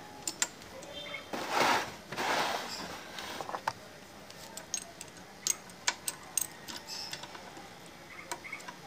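Light metallic clicks and taps as transmission parts are handled and fitted into a motorcycle engine crankcase half. About one and a half seconds in there are two short hissing rushes, the loudest sounds here.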